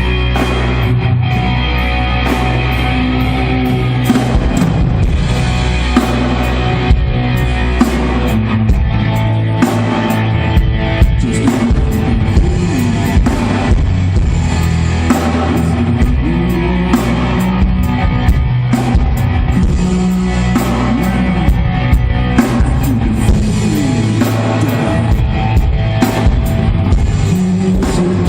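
Rock band playing live, with the drum kit hitting sharply and steadily under guitars and sustained low bass notes.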